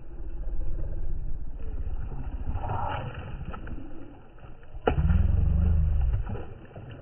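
Muffled, low rumbling buffeting on the microphone. About five seconds in there is a sharp click, then a louder low rumble for a second or so.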